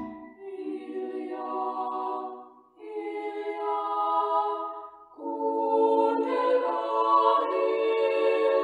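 A small ensemble of women's voices singing a Christmas song unaccompanied, in three phrases with short breaks between them.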